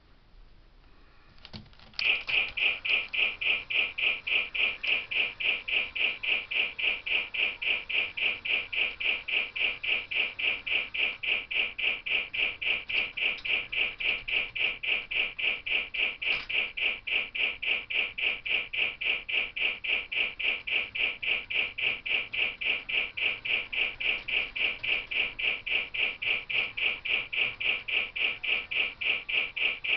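Lionel Polar Express model train running on its track with a fast, even, rhythmic pulsing at roughly four beats a second. The pulsing starts abruptly about two seconds in and holds a steady pace.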